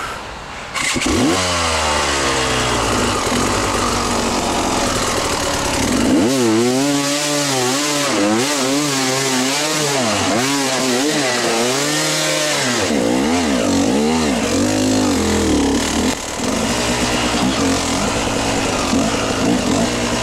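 Dirt bike engine revving hard under load on a steep muddy climb. It rises sharply about a second in, then the throttle is opened and closed again and again, so the pitch rises and falls in quick waves before settling into a steadier run.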